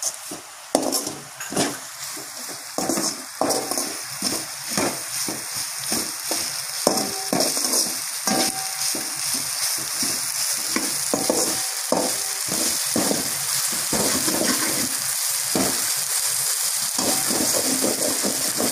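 Chopped onion, chilli and scrambled egg with sauce sizzling in a metal kadai, while a spatula stirs and scrapes it against the pan in repeated irregular strokes. The food is being sautéed until the sauces lose their raw smell.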